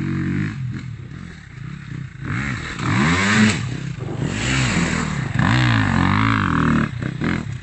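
Dirt bike engine revving up and down in a series of throttle bursts as the bike rides in close and past, the revs loudest about three seconds in and again near the end.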